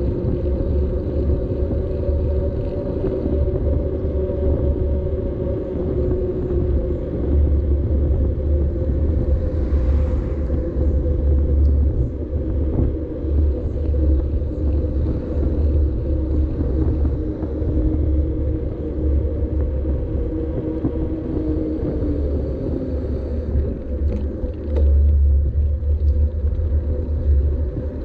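Wind rumbling on a bicycle-mounted GoPro's microphone while riding, with steady road noise from the tyres on wet asphalt; a humming tone in the road noise slides lower in pitch about three quarters of the way through.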